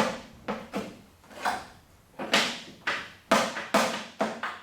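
A quick, uneven series of sharp knocks and clicks, about nine in all, roughly two a second.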